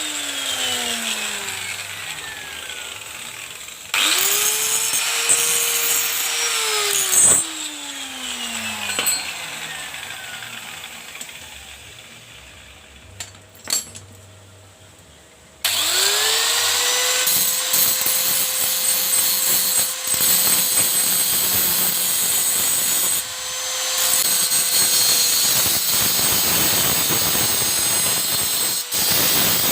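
A small electric power tool's motor switched on and off in runs. At the start it is winding down with a falling whine. It is switched on again about four seconds in, spins up quickly to a steady whine, and winds down again a few seconds later. Near the middle it starts once more and runs steadily to the end, dipping briefly once, with rough noise over the whine as it works material.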